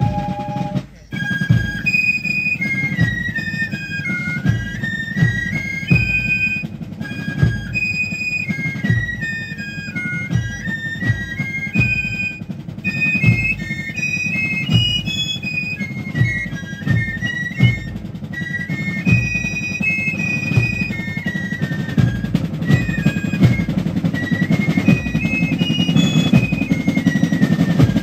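Fife and drum corps playing a march: shrill fifes carry a high stepping melody over steady snare and bass drum beats. The fifes come in about a second in, after a brief break.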